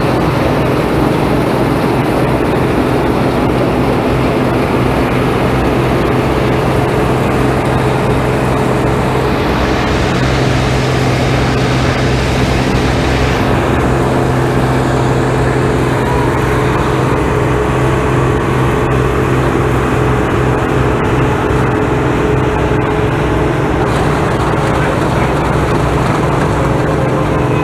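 Harvest machinery engine running steadily at constant speed, with a brief swell of higher hiss about ten seconds in.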